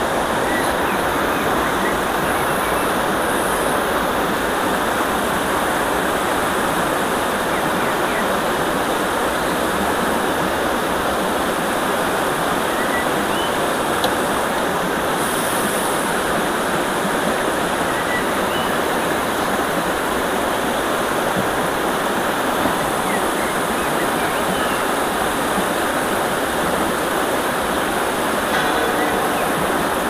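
Shallow river rushing over a rocky bed and spilling over a low ledge: a steady, even rush of water.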